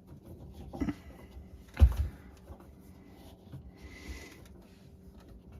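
A few knocks, the loudest a heavy thump just under two seconds in, and a short hiss around four seconds in.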